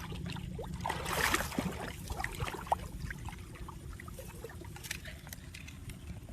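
Water splashing and trickling, with scattered drips over a steady low rumble. A louder splash comes about a second in.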